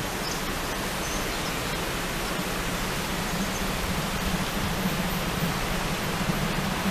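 Steady outdoor noise, an even hiss like wind on the microphone, with a low hum that grows slightly louder near the end.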